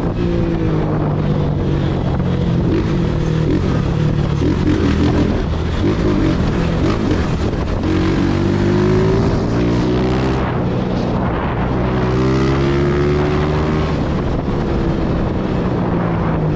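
Honda motorcycle engine running as it is ridden through traffic, the pitch rising twice in the middle as it accelerates, then falling again near the end.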